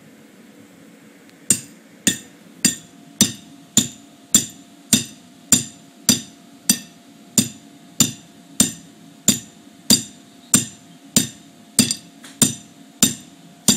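A hammer repeatedly strikes a metal ground stake that anchors an inflatable moon bounce, with about twenty evenly paced blows roughly every 0.6 seconds starting about a second and a half in. Each blow gives a sharp metallic clank that rings briefly.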